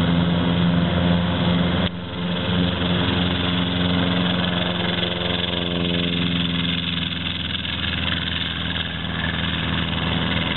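Molt Taylor Aerocar's piston engine and pusher propeller running steadily as the flying car rolls along the runway: a steady engine drone that breaks off and resumes slightly quieter about two seconds in.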